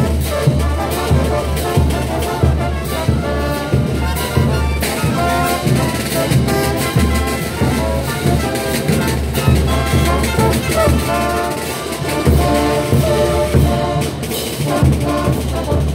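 Bolivian street brass band playing a morenada: euphoniums, baritone horns and sousaphones over a bass drum, with a steady marching beat.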